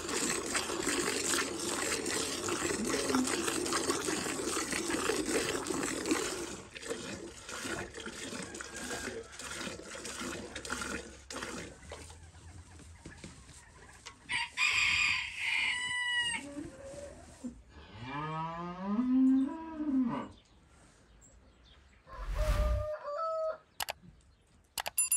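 Hand-milking a cow into an enamel bucket: streams of milk hissing into the foamy milk in quick succession for about the first six seconds, then fading. Partway through, a rooster crows, followed by a lower, longer animal call that rises and then falls.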